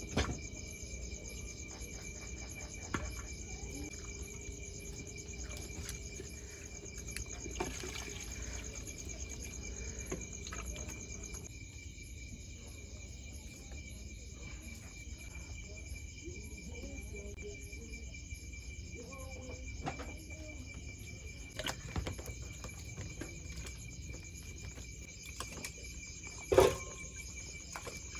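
Steady, unbroken high chirring of night insects, with a low rumble beneath it. A few soft knocks of pots and utensils sound now and then, and there is one louder, short clatter near the end.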